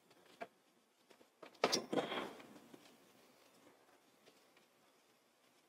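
Faint handling of quilted fabric as it is turned right side out: a small click about half a second in and a brief rustle a little under two seconds in.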